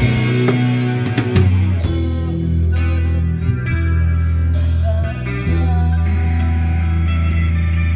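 Live rock band playing: amplified electric guitars holding long low chords that change every second or so, over a drum kit with cymbal hits.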